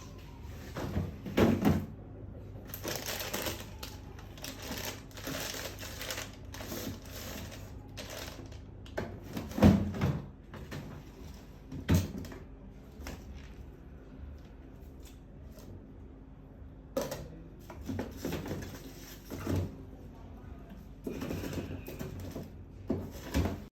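Irregular clattering and knocks of household items being handled and put away, some sharper and louder than others, over a steady low hum.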